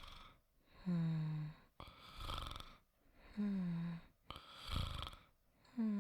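A person snoring softly in a slow, even rhythm, about one breath every two and a half seconds. Each breath is a short hum that falls slightly in pitch, followed by a breathy rasp.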